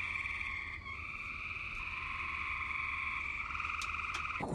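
Frogs trilling in a steady chorus, a fast pulsing trill at two pitches, shifting slightly about a second in and again near the end.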